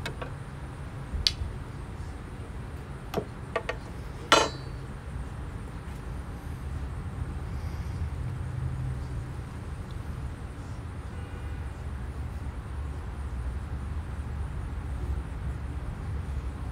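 Steady low background rumble, with four sharp clicks or knocks in the first five seconds. The last click is the loudest and rings briefly.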